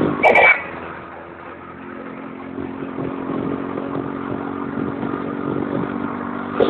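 Moving car's engine and road noise, heard from inside a vehicle, with a brief loud clatter at the very start and then a steady engine hum that grows louder.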